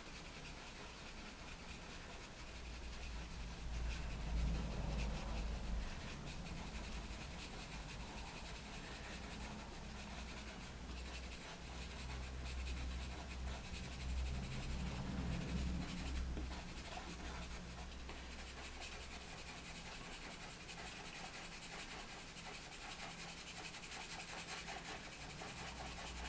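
Pastel pencil held almost on its side, scratching and rubbing across textured pastel paper in small, quick scribbling strokes as foliage is drawn in. A faint low rumble comes and goes twice.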